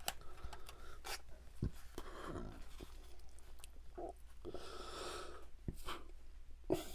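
Wooden chopsticks scraping and tapping in a foam takeout container as chicken fried rice is dug into and scooped up: scattered soft clicks and rustles, close to the microphone.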